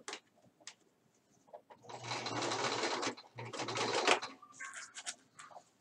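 Domestic sewing machine stitching a seam in two short runs, each about a second long, with a brief stop between them. A few light clicks of fabric handling come before and after.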